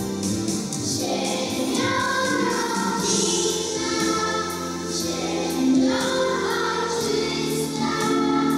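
A choir of young schoolgirls singing a Polish patriotic song together in sustained phrases, with held notes from an accompaniment beneath the voices.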